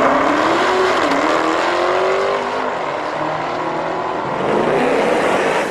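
Dodge Hellcat and Chevrolet Camaro ZL1 supercharged V8s at full throttle in a drag race. The engines climb in pitch, drop back at each gear change about a second in and again a little later, then climb again near the end.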